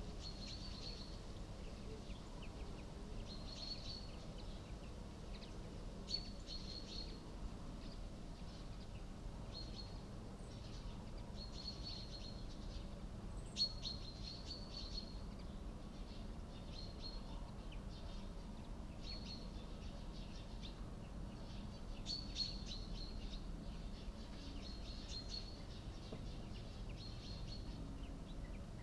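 Bird chirping: short, high-pitched phrases of quick notes repeated every second or two, over a faint steady low rumble.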